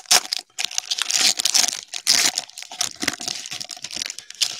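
Plastic cello-pack wrapper of a trading card pack being torn open and crinkled, a dense run of crackling that stops abruptly near the end.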